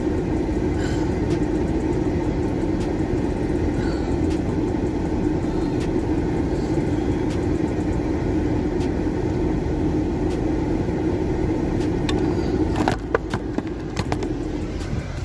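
Steady rush of a car's heater blower running high, with the engine idling, heard inside the cabin. Near the end it drops quieter, with a few clicks.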